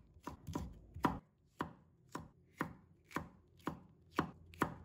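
Cleaver slicing green and red chili peppers into strips on a wooden cutting board: even knife strokes knocking on the board, about two a second.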